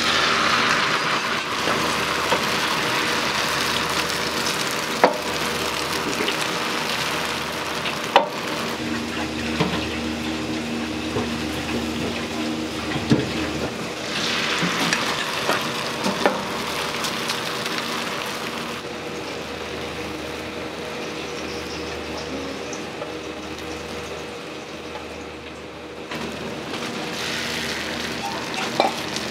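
Restaurant kitchen work: a hiss of running water or frying that swells and fades three times, over a steady hum of kitchen machinery, with a few sharp knocks of utensils.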